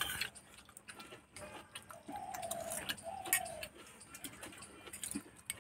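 Metal spoon tapping and scraping against a small bowl as food is scooped up: a few light, irregular clicks.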